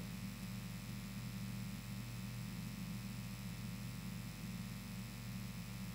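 Steady low electrical hum with a faint hiss underneath and no other sound: the background noise of the microphone line.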